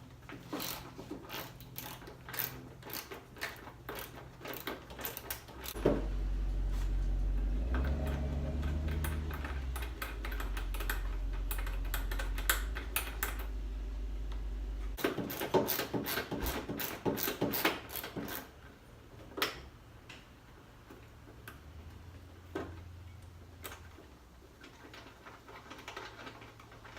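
Rapid clicking and rattling of plastic and metal parts as the stock airbox's lower half is worked loose in the engine bay. A loud low rumble runs through the middle stretch, then more bursts of clicks and scattered knocks.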